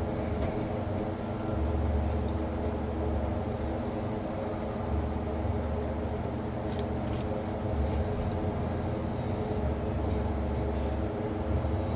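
Steady mechanical hum with a low rumble that swells and fades every few seconds, and a few faint clicks.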